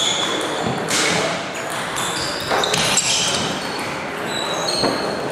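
Scattered clicks and short pings of table tennis balls on tables and bats from play around a large, echoing hall, over a low murmur of voices.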